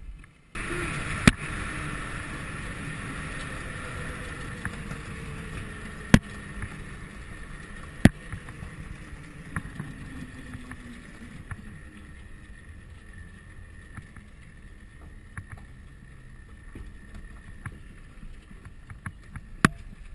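Homemade 48-volt electric go-kart driving on an asphalt road, heard from on board: steady road rumble with a motor-and-drive whine that slowly drops in pitch, starting suddenly about half a second in, with a few sharp knocks along the way.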